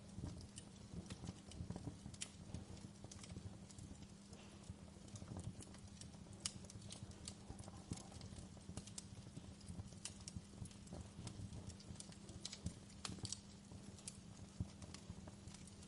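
Wood fire crackling: irregular sharp pops and snaps of burning wood over a low, steady rumble of the flames.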